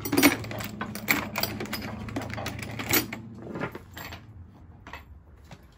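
Handfuls of metal star-drive screws rattling and clicking as they are picked out by hand, over a low steady hum that cuts out about three and a half seconds in. After that, only a few scattered light knocks.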